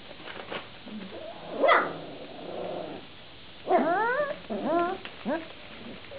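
Young Vizsla puppies yipping and whining as they play: a sharp yelp about two seconds in, a short growl, then three high, wavering yips near the end.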